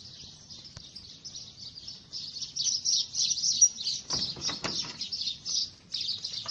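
Small birds chirping and chattering rapidly and continuously, growing much louder about two seconds in, with a few harsher, coarser calls a little after the middle.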